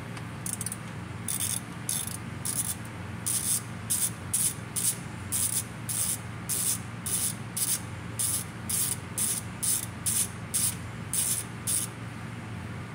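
Hand ratchet wrench clicking in short rasping bursts, about two a second, as it is swung back and forth turning a bolt on the automatic transmission's valve body; the clicking stops near the end.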